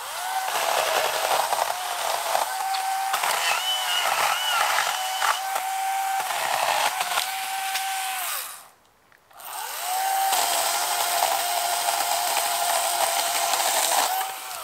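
Oregon battery-powered chainsaw cutting branches: a steady motor whine that sags each time the chain bites into wood. It winds down and goes quiet for about a second just past halfway, then spins up again and cuts on.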